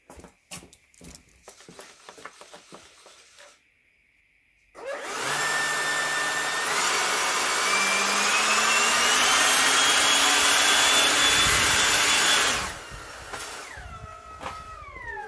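The Radical Rocket drone's electric ducted fan spools up into a loud, steady rushing whine that climbs slowly in pitch as it lifts off its pad. After about eight seconds the throttle is cut: the sound drops suddenly and the motor winds down with a falling whine near the end. A few light clicks and knocks come before the spool-up.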